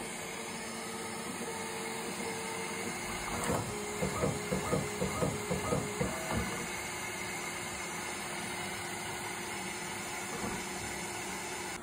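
Bambu Lab P1S 3D printer running its automatic pre-print routine: a steady fan whir, with a string of short motor buzzes at changing pitches from about three and a half to six and a half seconds in as the toolhead and bed move.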